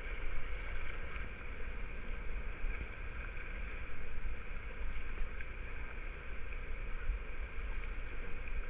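River current rippling and rushing around a kayak's hull in a choppy riffle, with wind rumbling on the microphone.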